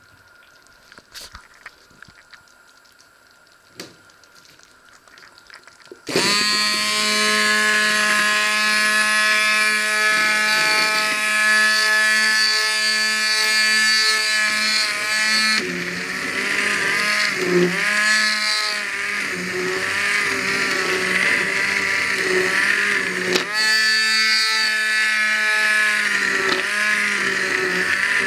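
Hand-held immersion blender switched on about six seconds in, its motor running loudly as it purees fruit in a steel pot. Its pitch drops partway through and wavers, then rises again near the end. A few faint clicks come before it starts.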